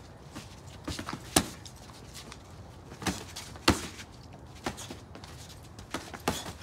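Boxing gloves smacking as punches land in a sparring bout: a handful of sharp, irregular hits, the loudest about a second and a half in and again near the four-second mark.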